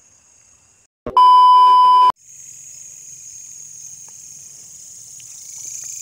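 A loud electronic beep: one steady tone about a second long, starting about a second in after a brief drop to silence. After it, crickets and other insects keep up a steady high-pitched chirring.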